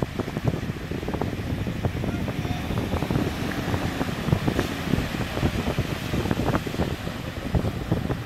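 Wind buffeting the microphone in an uneven low rumble, over waves washing onto the beach.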